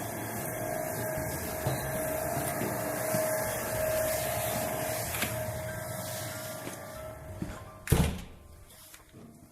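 Package-unit air-conditioning machinery running with a steady whirring noise and a held hum. It fades out, then a single sharp knock comes about eight seconds in, after which it is much quieter.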